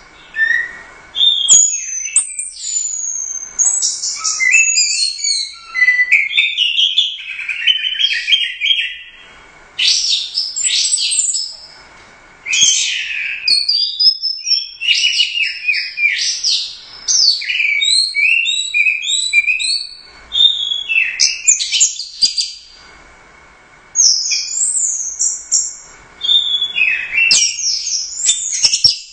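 Orange-headed thrush singing a loud, varied song of rapid high whistled and chattering phrases, in runs of a few seconds broken by brief pauses.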